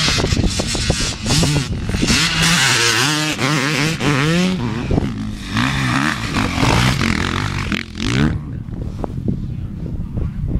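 Motocross bike engine revving hard as it rides past close by. The revs climb several times in a row through the gears, and the sound falls away about two seconds before the end.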